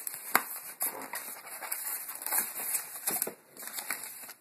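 Handling noise from a boxed spring BB gun and its packaging: crackling and rustling with a string of sharp clicks and knocks, the sharpest about a third of a second in.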